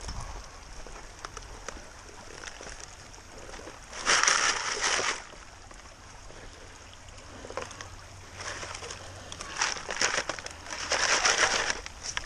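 Gravel and creek water sloshing in a plastic mesh classifier sieve as it is shaken in the stream, in bursts: one about four seconds in, then several more from about eight seconds in, over the steady wash of the creek.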